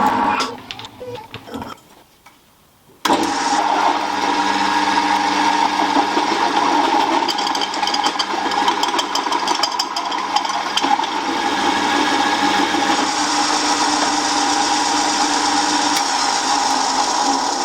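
Small milling machine running, its end mill cutting holes for subframe mounts: a steady motor whine with cutting noise. It dies away just after the start and stops briefly, then comes back abruptly about three seconds in and runs steadily to the end.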